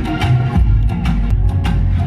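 Dancehall music played loud over a sound system: a heavy bass line with sharp percussion hits on the beat.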